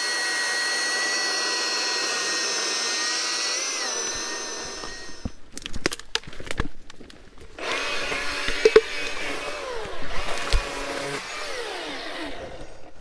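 Chainsaw running steadily at high speed for about four seconds, then winding down and stopping. It is followed by knocks, cracks and creaks of the cut log and branches being pushed aside.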